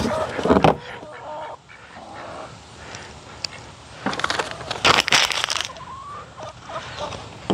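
Cardboard box flaps and crumpled kraft packing paper being handled and rustled, loudest near the start and again for a second and a half about four seconds in, with poultry calling in the background.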